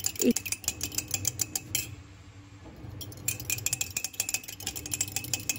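A metal utensil beating a raw egg in a mug, clinking rapidly against its sides. The beating pauses about two seconds in and starts again about a second later.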